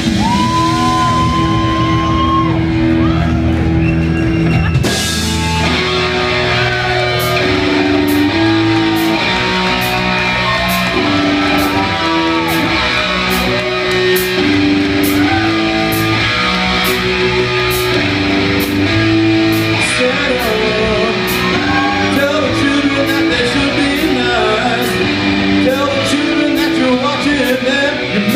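Live heavy metal band playing an instrumental passage: an electric guitar lead with a long held note, then many bent notes, over rhythm guitar, bass and drums with cymbal hits on a steady beat.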